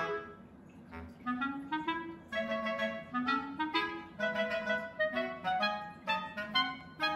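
Background music: a melody of short, quick notes on a clarinet-like woodwind over a lower accompaniment.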